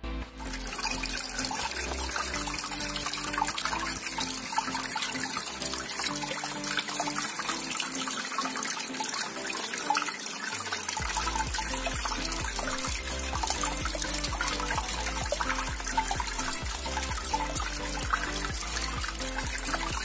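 Water from a small tabletop cement waterfall fountain trickling and splashing steadily into its basin, over background music.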